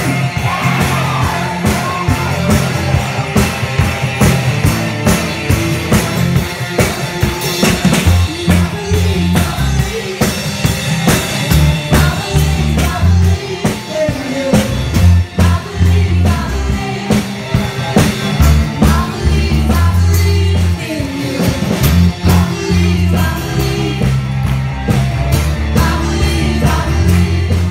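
Upbeat rock-style band music with a driving drum kit, electric guitar and singing.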